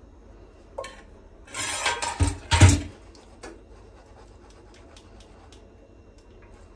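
Cookware clatter: a small saucepan put back down on the gas stove with a scraping rattle and two heavier knocks, the loudest moment, followed by faint light taps as food is arranged in a metal baking tray.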